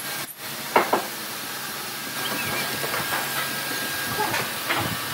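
Steel pipe clamps being cranked tight by hand on a wooden table frame: a few sharp knocks and clicks, the loudest about a second in, over a steady hiss.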